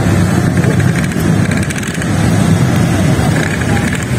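Road traffic at night: a steady low rumble of vehicle engines.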